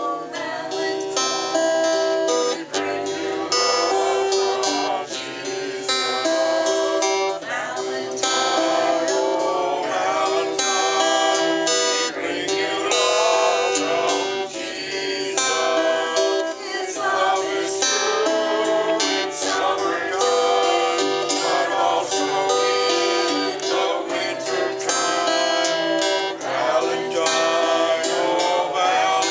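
A woman singing while strumming an acoustic guitar, a steady song with regular strums over held chords.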